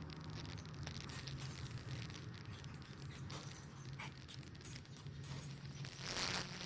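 Microwave-oven transformer of a fractal wood burner humming steadily under high-voltage load, with faint scattered crackles and a short hiss about six seconds in.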